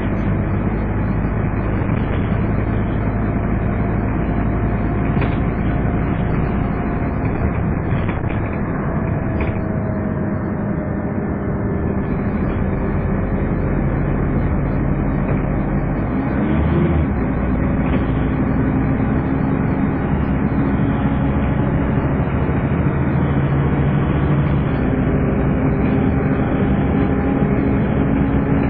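Scania N230UD double-decker bus under way, its engine and drivetrain note rising and falling with road speed. The whine gives the model its 'Hoover' nickname.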